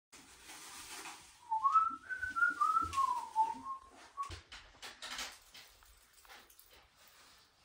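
A person whistling a short tune of several rising and falling notes for about two seconds, followed by a few scattered light knocks and handling clatter.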